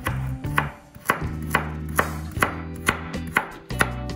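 Santoku knife dicing carrot on a bamboo cutting board: steady chops about two a second, each a sharp knock of the blade on the wood.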